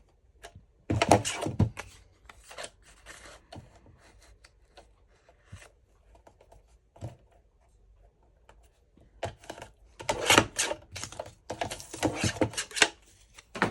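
Paper being handled and cut with scissors: irregular bursts of rustling and snipping, loudest about a second in and again from about ten seconds in, with quieter handling sounds between.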